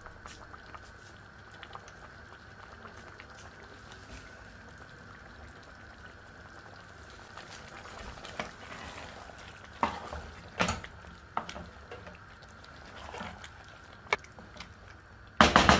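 Githeri stew of beans, maize and potatoes simmering in a pot, a soft steady bubbling. A few sharp knocks of a spoon against the pot come about ten seconds in, and a sudden loud noise starts just before the end.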